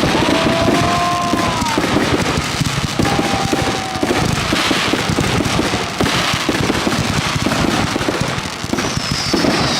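Consumer fireworks going off in rapid succession: dense crackling and popping throughout. A whistling tone sounds at the start and again about three seconds in, and a high falling whistle comes near the end.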